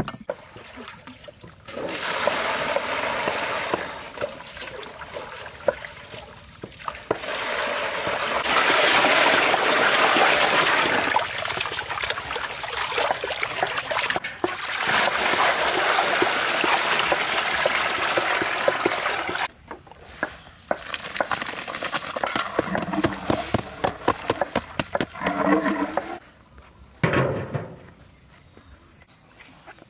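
Water sloshing and splashing as hands squeeze and knead chicken gizzards in a woven bamboo basket of foamy water, with a short let-up about seven seconds in. The washing stops about twenty seconds in, and scattered clicks and knocks follow.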